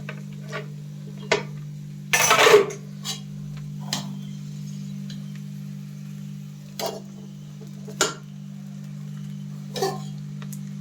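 A spatula knocking and scraping against a pan at irregular intervals while boiled rice is stirred and tossed into fried rice, with one longer, louder scrape about two seconds in. A steady low hum runs underneath.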